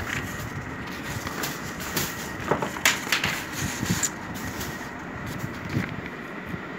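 Sheet of origami paper rustling and being creased by hand, with a few crisp crackles and taps, the strongest cluster about halfway through, over a steady background hiss.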